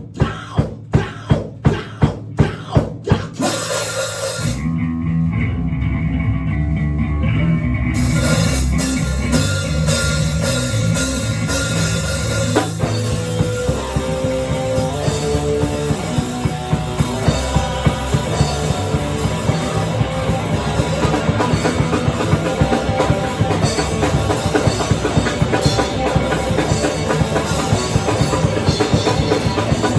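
Rock band playing: drums alone at first, evenly spaced hits about three a second. About four seconds in, bass and guitar join, and from about eight seconds in the full band plays with cymbals.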